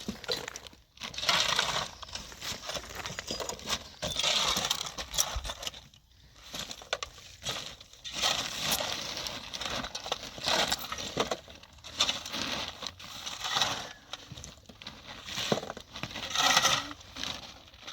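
Crunching and clattering of debris being handled, in irregular bursts a second or two long with short pauses between them.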